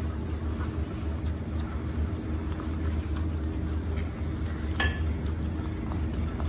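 Dental alginate impression paste being stirred and spatulated with water in a mixing bowl, a steady wet scraping and stirring, with a small click near the end.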